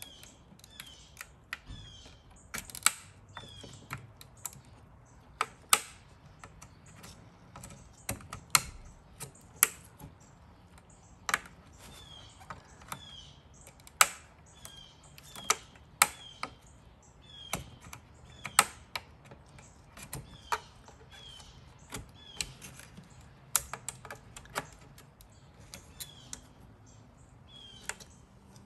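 Irregular sharp plastic clicks and snaps, the loudest every couple of seconds, as the clips of a BMW E36 M3 instrument cluster's plastic housing are worked loose by hand. Short high falling chirps repeat faintly behind them.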